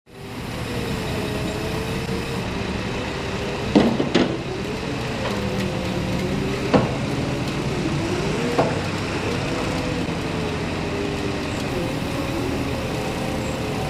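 Diesel engine of a JCB telehandler running under load, its revs rising and falling as the machine climbs loading ramps onto a flatbed truck. There are several sharp knocks: a close pair about four seconds in, then single ones around seven and nine seconds.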